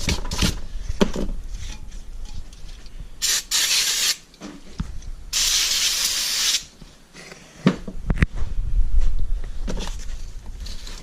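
Aerosol brake cleaner sprayed in two hissing bursts of about a second each onto a brake caliper bracket, between stretches of a brush scrubbing brake dust off the metal.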